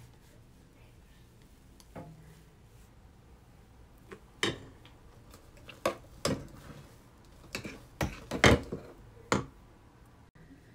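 A spoon clinking, tapping and scraping against a bowl and a cake pan while cake batter is spooned in. The clinks and knocks come one at a time and more often in the second half, and the loudest is about two-thirds of the way through.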